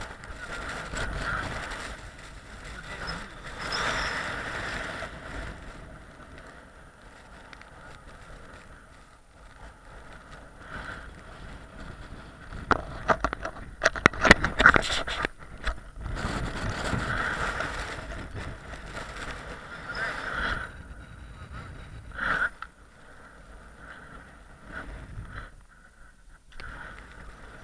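Strong blizzard wind at a mountain summit buffeting the microphone, rising and falling in gusts, with crackling knocks at its loudest about fourteen seconds in.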